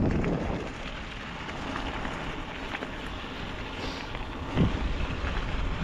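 Wind buffeting the microphone of a rider on a moving bicycle, a steady rushing noise with a few faint ticks.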